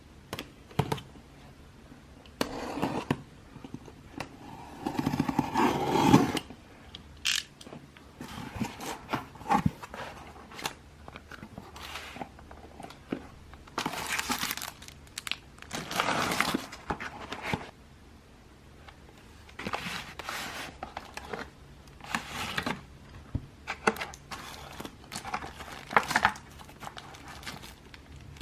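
Irregular crinkling, rustling and scraping of things being handled close by, with a few sharp clicks.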